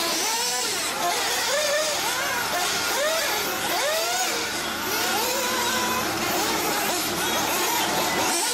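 Several 1/8-scale nitro (glow-engine) RC buggy engines on track, overlapping, their high-pitched note rising and falling over and over as they rev and ease off.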